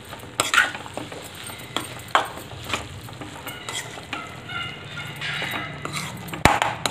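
A metal spatula stirs and scrapes crumbled paneer and masala around a metal kadhai, in repeated short scraping strokes, over a light sizzle of frying on a low flame. A sharp click comes near the end.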